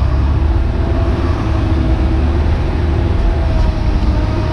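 Hitachi Zaxis 130 excavator's diesel engine and hydraulics working under load, heard from inside the cab, while it digs hard clay: a steady low rumble with a faint whine above it.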